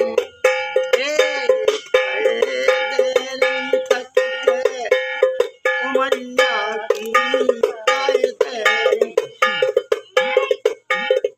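A man sings a Bundeli folk song to his own percussion: sharp metallic strikes on a steel tin canister, ringing at a quick, steady beat.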